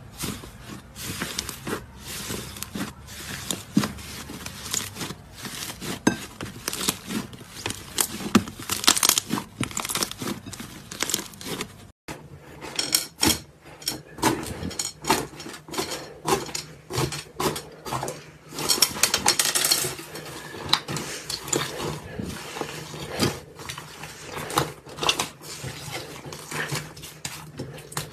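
Hands pressing and kneading thick slime, making many small irregular clicks, pops and squishes. After a cut about twelve seconds in, a matcha-green slime with a dried, cracking surface crust is pressed, with a denser run of sharp crackles and pops as the crust breaks.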